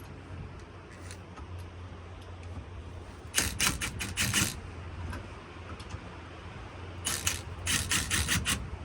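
Metal hand tools clicking and clattering in two quick runs of several clicks, about a second each, a few seconds apart, over a steady low hum.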